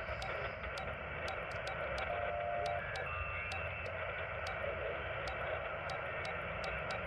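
Alinco DX-70 HF transceiver's receiver audio on the 40-metre band in lower sideband as the dial is tuned up the band: steady band hiss with brief whistles of passing signals, and a scatter of sharp ticks.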